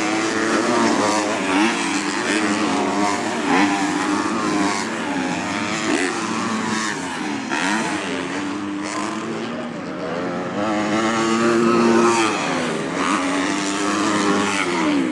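Several motocross bikes racing on the track, their engines revving up and down and overlapping as they accelerate and back off.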